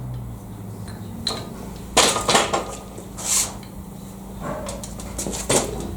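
Metal clinking and scraping of an Allen key and tools on a steel milling vice as a cap screw is worked loose: several sharp clinks, the loudest about two seconds in, over a steady low hum.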